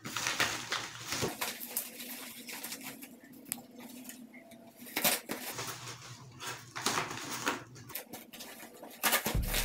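Crinkling and rustling of a yellow padded paper envelope being handled and cut open with scissors, with scattered clicks and snips. Background music comes in near the end.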